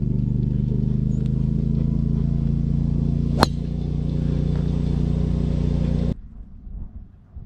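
A steady, even motor hum, with the sharp click of a golf driver striking a ball off the tee about three and a half seconds in. The hum cuts off suddenly about six seconds in.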